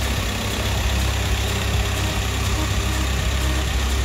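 VW T5 Transporter's engine running at a low, steady idle as the van creeps slowly out of the workshop bay.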